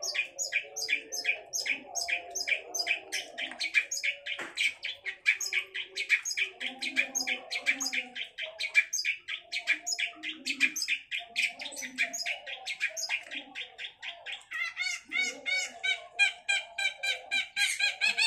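Long-tailed shrike (cendet) singing in a fast run of sharp repeated notes, about five a second. About three-quarters through it switches to harsher, nasal notes.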